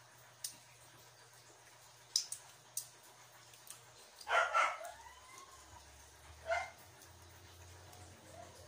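A dog barking: two quick barks about four seconds in and one more about two seconds later. Small sharp clicks of shrimp shells being peeled by hand come before them.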